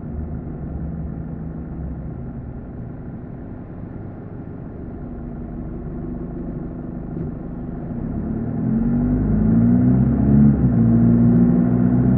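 Car driving on a road, with low engine and road rumble. About two-thirds of the way in the engine note grows louder and climbs in pitch as the car speeds up, then levels off.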